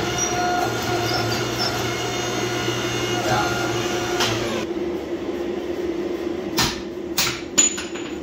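Shop machinery hums steadily with several fixed tones. Near the end, three or four sharp metal clanks sound as the hot axe head, held in tongs, is set against a steel stand.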